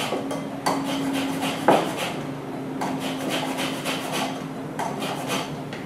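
Lemon zest being grated on a hand grater over a bowl: quick rasping strokes, about three a second, with one louder knock a little under two seconds in.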